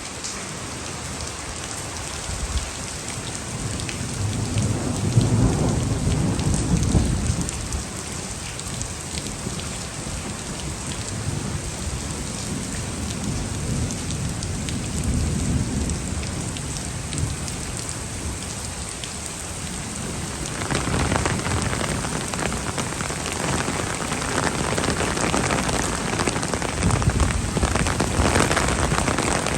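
Heavy thunderstorm rain pouring steadily, with low rolling thunder rumbling several times; the loudest rumble comes about five seconds in. The downpour grows heavier about two-thirds of the way through.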